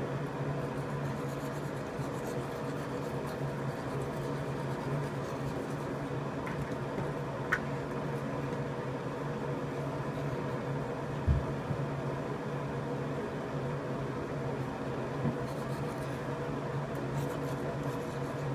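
Steady machine hum with several pitched tones, with a faint click about seven and a half seconds in and a short low thump a few seconds later.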